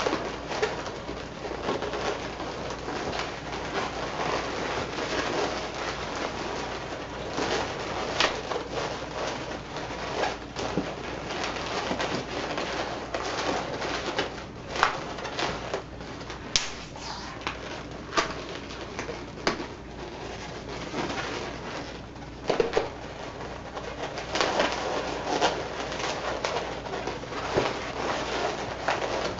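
Latex modelling balloons squeaking and rubbing against each other as they are twisted and tucked together, with occasional sharp squeaks and snaps.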